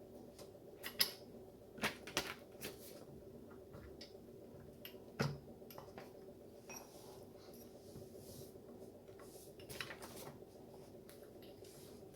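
Scattered light clicks and knocks of small metal parts, such as screws, washers and the press frame, being handled and fitted while a button-maker press is put together, over a faint steady hum.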